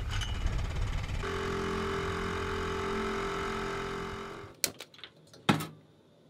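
Small dinghy outboard motor catching about a second in and running steadily, then fading out. A few sharp clicks follow near the end.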